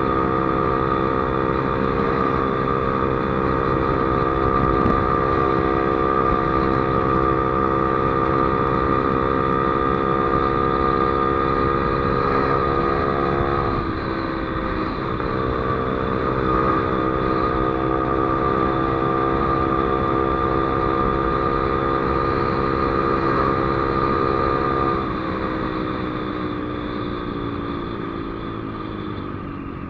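Motorcycle engine running at high revs at highway speed, its pitch creeping slowly upward, dipping sharply about halfway through as the throttle comes off or it shifts, then climbing back before falling away steadily near the end as the bike slows, over steady wind and road noise.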